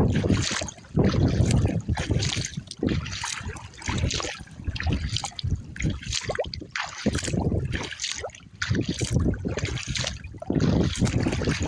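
Water splashing and trickling from kayak paddle strokes, with repeated gusts of wind rumbling on the microphone in windy, choppy conditions.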